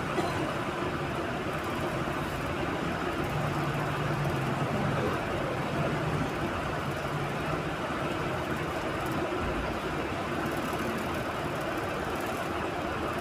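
Steady background hum and hiss of a room with a machine-like drone, with a faint low tone for a few seconds around the middle.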